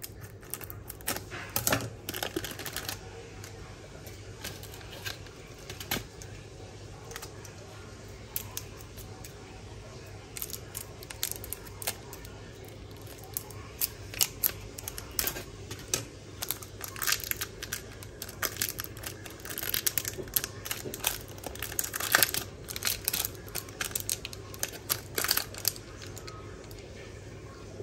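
Thin plastic wrapper on imitation crab sticks being snipped with scissors and peeled off, making irregular crinkles, snips and crackles that come thicker in the second half.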